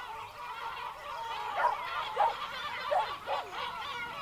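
Puppies whining and yipping, several high calls overlapping, with short sharper yips every half second or so.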